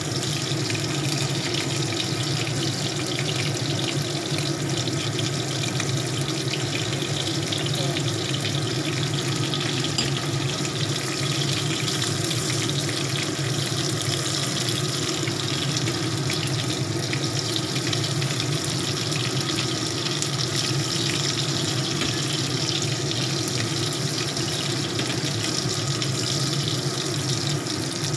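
Battered shrimp frying in hot oil in a wok, a steady crackling sizzle, with a steady low hum underneath.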